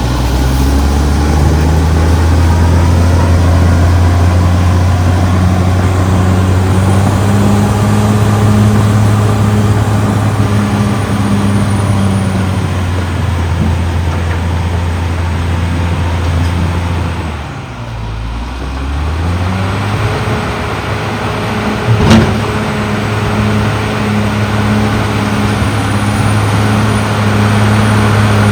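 Caterpillar D6R XL bulldozer's diesel engine running steadily under load. About two-thirds of the way through the revs drop briefly and then climb back, and a single sharp clank follows a few seconds later.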